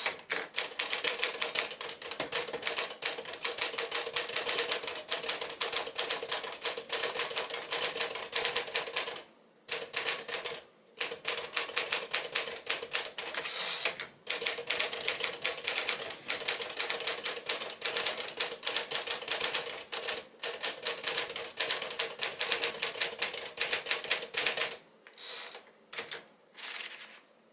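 1955 Smith-Corona Sterling portable manual typewriter being typed on at a fast, steady pace, the typebars striking in long rapid runs broken by a few brief pauses. The typing stops about three seconds before the end, leaving a few softer mechanical sounds.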